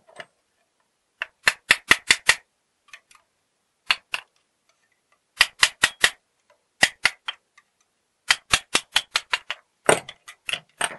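Hammer tapping a screwdriver blade driven under the welded-on cover plate of an old steel gate mortise lock case, forcing the plate off. Sharp metallic taps come in quick runs of four or five, repeated about seven times.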